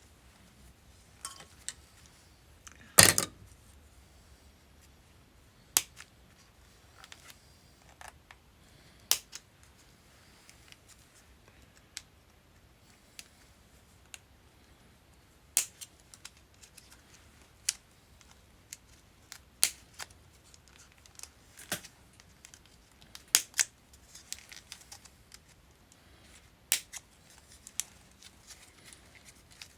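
Sharp, irregular snips and cracks of 40-year-old hard plastic being cut and broken off a Honda wiring harness, one every second or two, the loudest about three seconds in.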